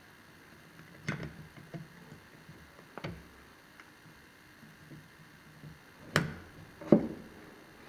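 Small sharp clicks and taps of metal and polymer parts as the magazine release spring of a Glock 19 frame is worked into its slot: a few scattered clicks, the two loudest near the end as the spring drops into place.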